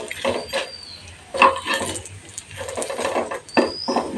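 Metal spatula scraping and knocking against a frying pan at irregular moments as frying papad rolls are slid over and turned.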